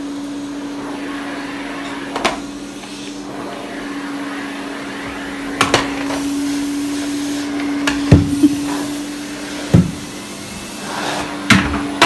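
Canister vacuum cleaner running steadily, its motor a constant hum with a rushing of air. Several sharp knocks and bumps break in along the way.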